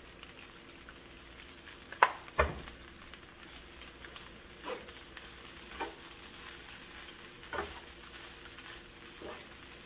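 Frying sizzle as kimchi fried rice is stirred and turned in a skillet with a spoon. A handful of sharp knocks of the spoon on the pan cut through it, the loudest about two and a half seconds in.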